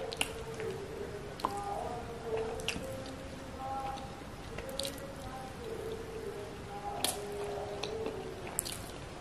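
Close-up wet chewing of soft idli soaked in sambar and coconut chutney: moist squishing with scattered sharp mouth clicks.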